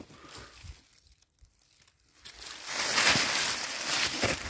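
Dry fallen leaves and dead grass rustling and crackling as they are trampled or brushed through. The rustle starts about halfway in and lasts under two seconds.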